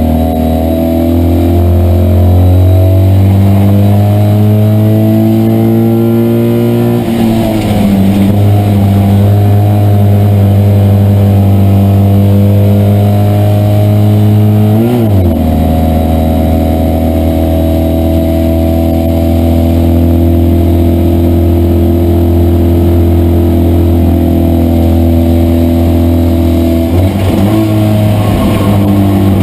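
Citroën 2CV race car's air-cooled 602 cc flat-twin engine running hard under racing load, heard from inside the car. The engine note climbs slowly through the revs and drops sharply about seven and fifteen seconds in, and again near the end.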